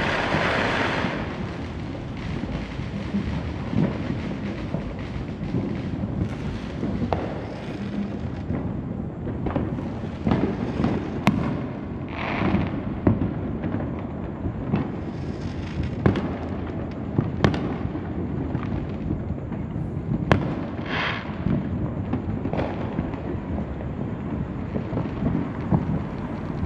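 Consumer fireworks going off many at once: a constant rumble of overlapping distant bangs, with sharper nearby cracks every few seconds and a few short bursts of hiss or crackle.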